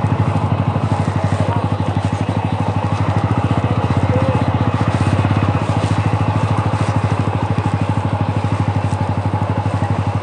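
Motorcycle engine, the TVS Apache RTR 200 4V's single-cylinder engine, running steadily under way, its firing pulses even with no revving up or down.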